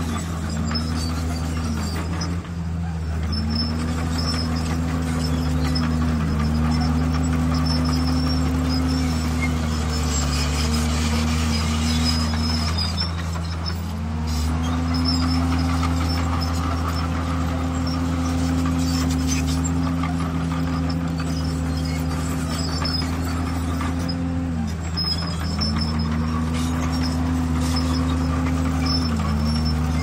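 Heavy diesel engine of a Komatsu bulldozer running at work. The engine note holds steady underneath, while a higher tone in it dips and climbs back every few seconds as the engine speed changes.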